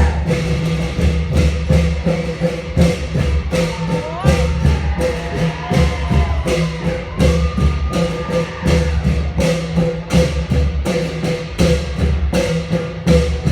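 Thai klong yao long-drum ensemble playing a fast, driving traditional rhythm: hand-struck long drums booming on a dense, even beat with sharp metallic strikes on top. A wavering, gliding high tone rises and falls through the middle.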